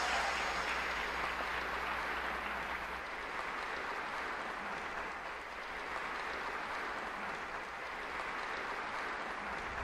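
Audience applauding after a speech, a steady even clapping that eases off slightly toward the end.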